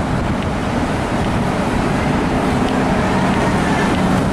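Steady low rumble of open-air noise on a docked cruise ship's upper deck, with a faint steady hum joining about three seconds in.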